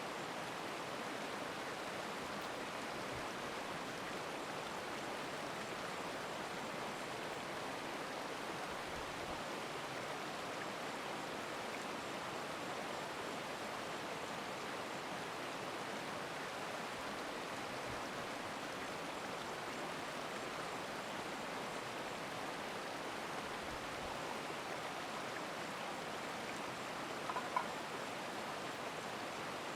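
Stream water running with a steady rush. A short click stands out near the end.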